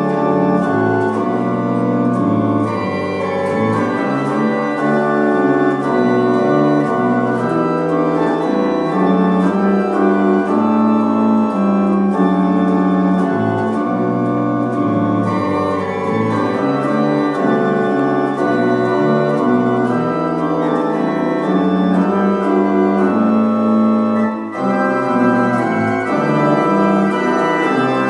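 Church pipe organ played in a continuous run of sustained chords that shift every fraction of a second. The organ is partly dismantled for cleaning and refurbishment, with pipes out of the instrument, which gives it a temporary sound its owners call "comedy gold".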